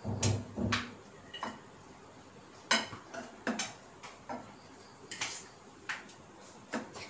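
Metal slotted serving spoon clinking and scraping against a coated cooking pan and a ceramic plate as cooked rice is scooped out and served. A quick cluster of clinks at the start, then single clinks about once a second.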